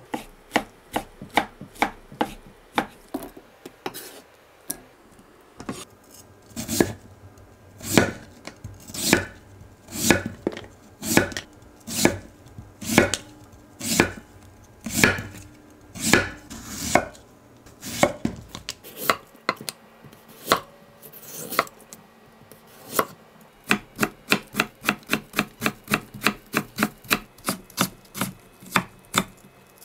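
Kitchen knife chopping on a wooden cutting board: first through tomato, then slicing a daikon radish into rounds with a stroke about every second. Near the end the slices are cut into thin strips with quicker chops, several a second.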